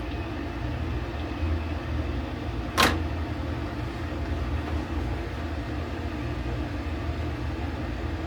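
Router with a 45-degree chamfer bit running steadily as it cuts the edge of a hardwood cutting board. There is one sharp knock about three seconds in.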